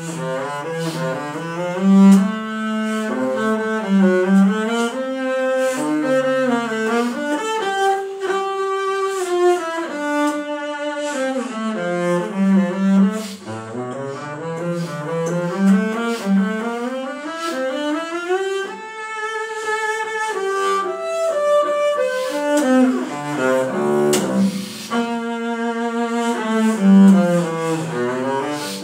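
Solo double bass played with the bow: a continuous flowing line of notes moving in stepwise runs, climbing high on the instrument and falling back several times.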